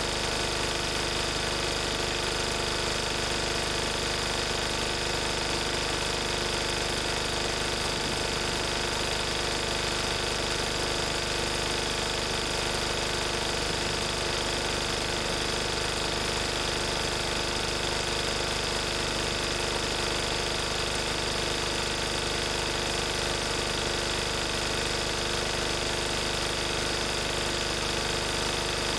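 1994 Lister Petter AD1 single-cylinder air-cooled diesel engine running steadily at its governed 3000 rpm, driving a Markon 5 kVA alternator. The note stays even, with no change in speed.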